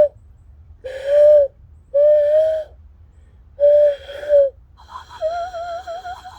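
Hooting whistle blown through cupped hands, imitating a bird call: a short hoot, two longer ones, then a quick pair, followed near the end by a wavering, warbling tone.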